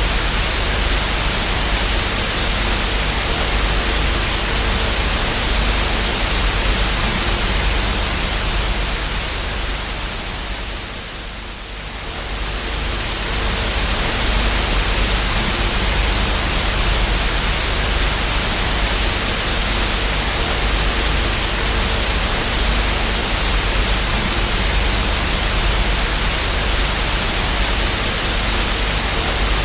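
Television static hiss, an even rushing noise from a no-signal screen, running steadily except for a brief fade down and back up about eleven seconds in.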